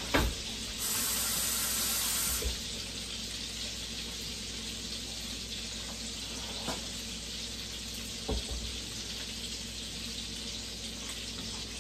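Italian sausages frying in oil and butter in a skillet, a steady sizzle. About a second in, a louder rushing hiss lasts about a second and a half, and a few soft knocks come near the start and again about eight seconds in.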